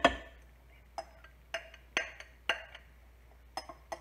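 A spoon clinking against a glass mixing bowl as the thick soup-and-ranch mixture is scraped out: a series of irregular clinks, each with a short glassy ring, the loudest right at the start.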